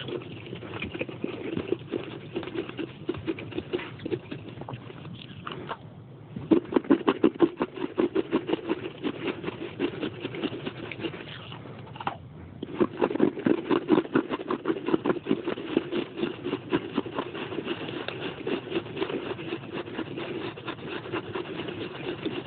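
Chewing on pieces of baked clay pot: a quick, continuous run of crunches. Twice, about six and twelve seconds in, a brief pause is followed by a louder spell of harder crunching.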